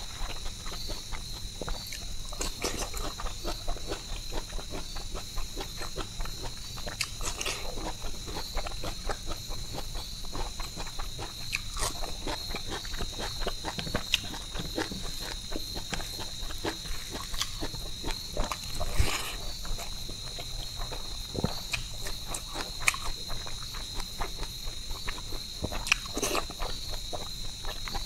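Close-miked eating sounds: wet chewing and lip smacking of rice, tin fish and silkworm pupae, with fingers squishing and mixing food on the plate. A steady high-pitched insect trill, like crickets, runs underneath.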